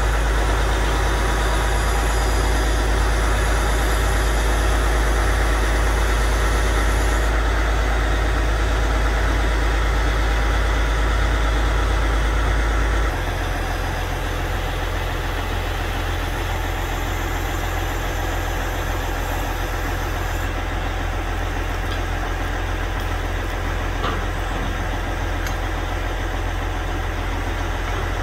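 Heavy truck engine idling steadily, a continuous low drone that shifts and gets a little quieter about halfway through.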